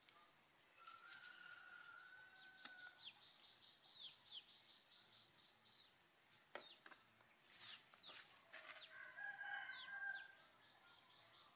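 A rooster crowing twice, a long held call about a second in and another near the end, while small birds chirp in quick falling notes throughout. A few sharp knocks fall in between.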